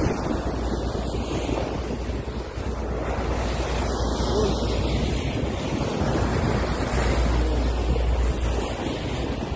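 Sea water rushing and splashing along the hull of a moving yacht, with wind buffeting the microphone in a steady low rumble that grows stronger near the end.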